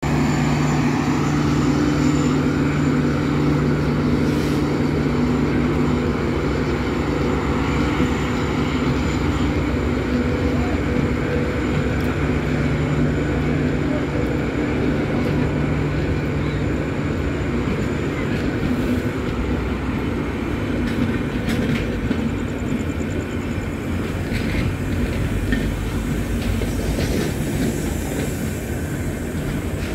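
Indian Railways passenger train of LHB coaches rolling past the platform, a steady rumble of wheels on rail. A low hum under it fades about two-thirds of the way through.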